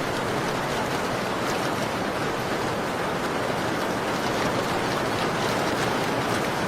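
Steady rain hiss with a few faint scattered crackles of a wood fire.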